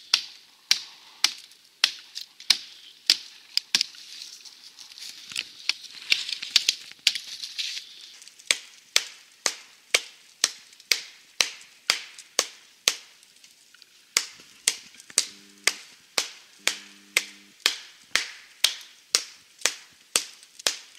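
A small hand blade chopping dry, dead standing wood in a steady run of sharp strikes, about two a second.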